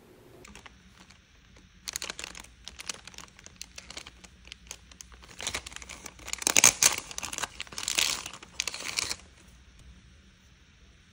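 Crinkling and crackling of something being handled, in a run of quick bursts that grows loudest past the middle and then stops.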